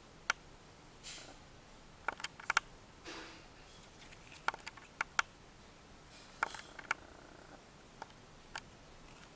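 Small sharp clicks and taps in scattered clusters, with a few soft rustles, from glossy photo cards being handled and turned over.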